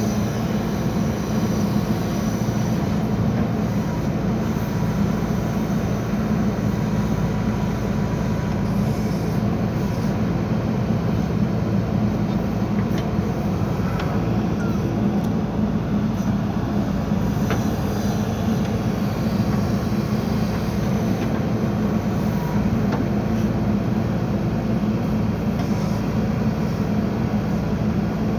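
JCB backhoe loader's diesel engine running steadily under work, a constant low drone at an even level.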